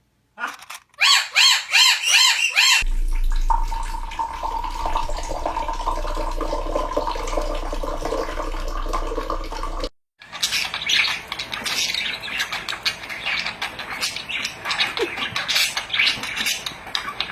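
Birds squawking and calling in short clips cut together: a quick run of squawks, then a long steady tone over a low hum that cuts off abruptly, then a busy stretch of rapid chattering and clicking.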